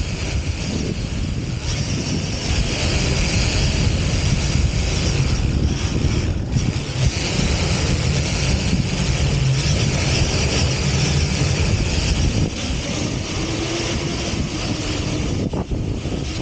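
Large RC car driving fast over sand, heard from a camera riding on it: its motor and drivetrain running under steady load with tyres throwing sand, and heavy wind rumble on the microphone. It is a little louder for the middle stretch of the run.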